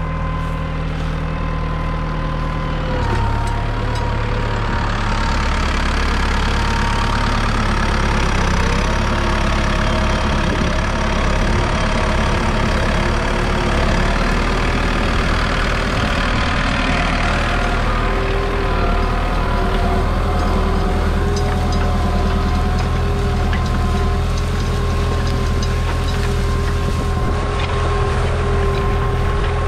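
Ford New Holland 7740's 5.0-litre four-cylinder diesel tractor engine running steadily with a high whine over it; the engine note changes and grows louder about three seconds in, and shifts again a few seconds later.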